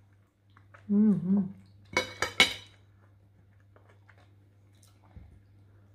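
Metal fork clinking against a ceramic plate, about three sharp ringing clinks close together about two seconds in. Just before, a short voiced murmur from someone at the table.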